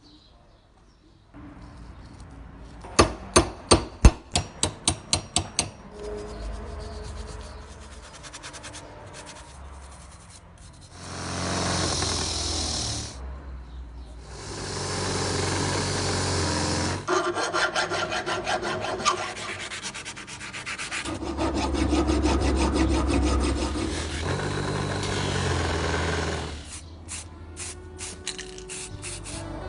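Rust removal on a metal hand punch: a quick run of about ten sharp taps a few seconds in, then long stretches of abrasive rubbing and filing on metal.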